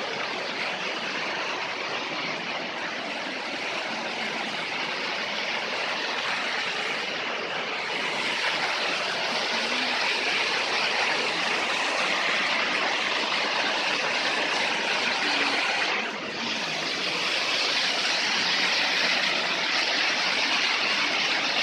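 Waterfalls and stream cascades rushing over rock: a steady, dense hiss of falling and churning water, growing a little louder partway through, with a brief dip about two-thirds of the way in.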